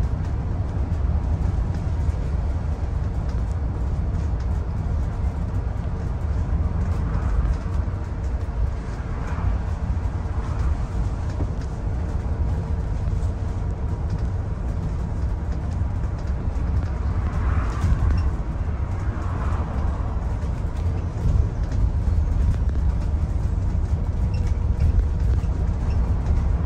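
Steady low rumble of an Arriva London bus in motion, heard from inside the passenger cabin: engine or drive and road noise, with a faint steady hum and a few brief faint higher sounds along the way.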